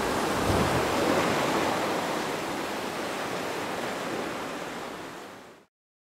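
Ocean surf washing on a beach, a steady rush of breaking waves that dies away over the last few seconds and cuts off just before the end.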